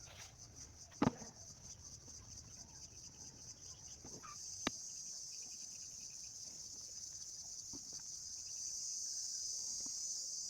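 Insects trilling steadily in a high, finely pulsed chorus, a little louder in the second half, with a couple of sharp clicks about a second in and near the middle.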